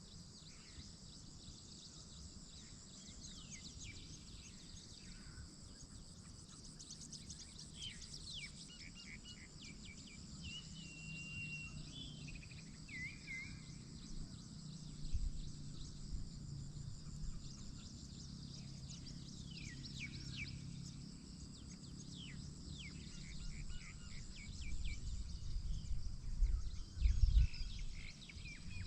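Outdoor nature ambience: birds chirping and whistling in short calls over a steady high-pitched insect drone. A low rumble underneath grows louder and more uneven near the end.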